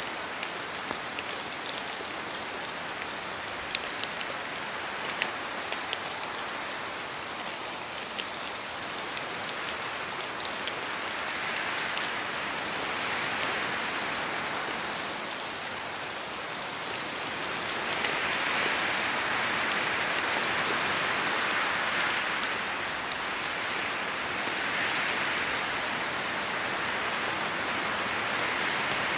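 Steady rain with many sharp individual drop ticks, swelling louder in slow waves from about ten seconds in, as gusts of wind pass through the trees.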